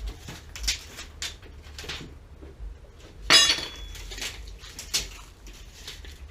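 Metal clinking and knocking, several separate strikes, with one louder, ringing clank a little over three seconds in.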